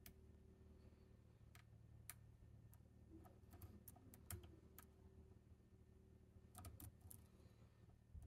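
Faint, irregular metallic clicks from a hook pick working the pins inside an ASSA Guideline lock cylinder under tension, with a quick cluster of clicks near the end, over a low steady hum.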